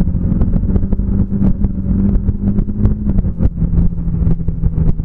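Bajaj Dominar 400's single-cylinder engine running steadily at road speed, its pitch lifting slightly and dropping back about three seconds in. Wind rushes over the microphone, with a rapid clatter of flapping throughout.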